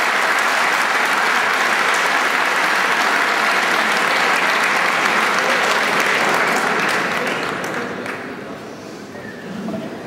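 Audience applause, a dense patter of clapping that dies away about seven to eight seconds in.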